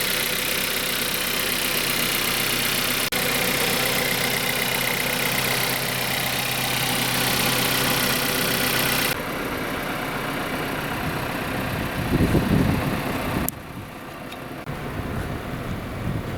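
The rebuilt Audi Q3 1.4 TFSI engine running at a steady idle. The sound changes abruptly about nine seconds in and again near the end.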